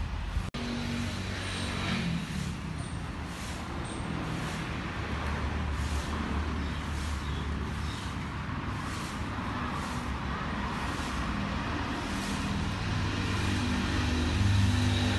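A stiff broom swishing across grass and dry leaves in regular strokes, about one a second, over a steady low rumble.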